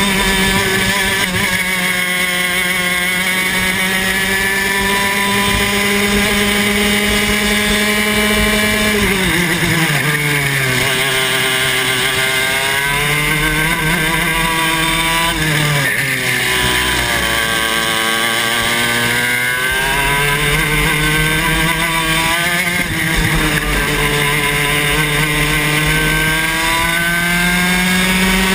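Club 100 TKM 115cc two-stroke kart engine at racing revs. It holds a high steady note for about nine seconds, falls sharply as the driver lifts for a corner, then climbs again. It dips once more about halfway through and rises steadily over the second half, dropping again right at the end.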